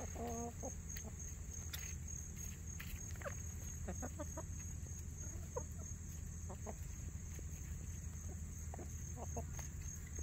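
A hen and a turkey feeding on wasp comb: one short call right at the start, then scattered soft clucks and pecks.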